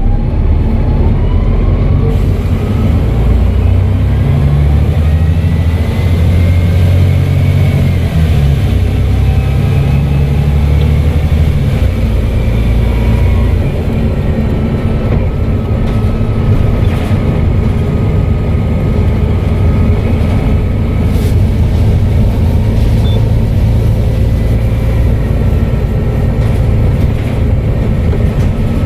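Volvo B7TL bus engine pulling under load with its turbocharger whistling. The whistle rises in pitch several times in the first dozen seconds as the engine works hard, then holds one steady pitch as the engine eases off.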